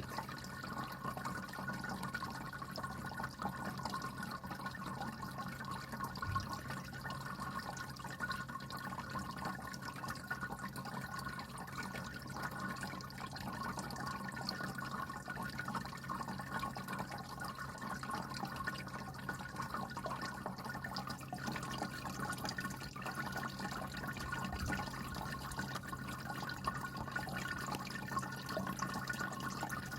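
Anko 3-litre pet water fountain running: water trickling and splashing steadily, over a constant hum from its small mains-powered pump.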